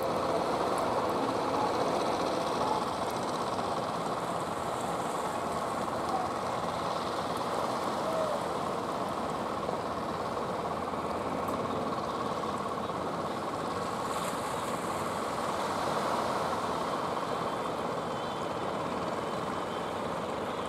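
Engines of motor fishing boats running steadily under way, an even, unbroken drone.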